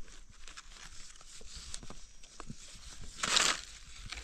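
Soft scraping, crackling and small clicks of soil and dry leaf litter as a gloved hand digs a red Russula mushroom out from under a fallen log with a small blade, with one louder rustling scrape about three seconds in.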